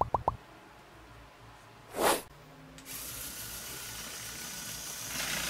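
A rapid electronic ticking effect stops just after the start and a short whoosh comes about two seconds in. From about three seconds in, a Lego Technic vehicle's electric motor and plastic gears whir steadily.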